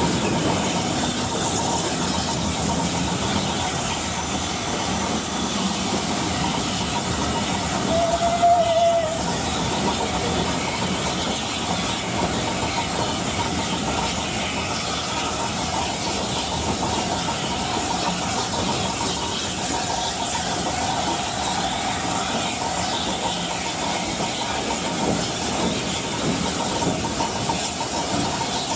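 Steam locomotives hissing steadily as a train of coaches runs past on the next track. A short whistle sounds once about eight seconds in.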